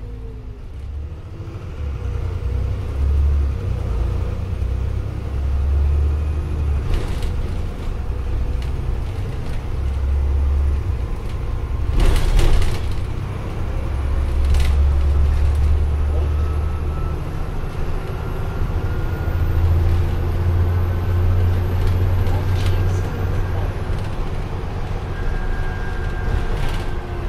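Inside a moving Dennis Trident Optare Olympus double-decker bus: a low engine and drivetrain rumble that swells and eases as it drives, with a few sharp knocks and rattles from the body, the loudest about twelve seconds in. A faint whine rises slowly in pitch through the second half.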